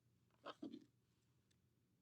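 Near silence: room tone, with one brief soft handling sound about half a second in.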